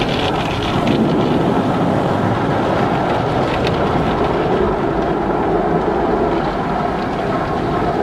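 Car wash running: a steady rush of water spray and machinery noise with a low hum.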